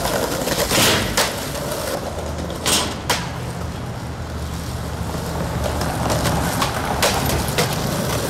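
Skateboard wheels rolling on concrete, a steady rumble broken by a few sharp clacks.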